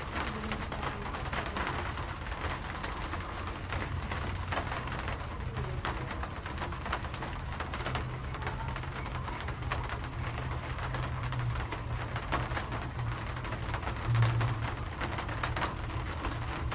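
Steady rain with a dense patter of individual drops. A low rumble swells briefly about fourteen seconds in.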